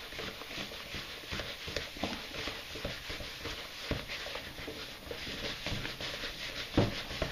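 Crumbly pasta dough of durum semolina, flour and green herb water being stirred in a glazed bowl: a quick, irregular run of scraping and light tapping against the bowl, with a louder knock about four seconds in and another near the end.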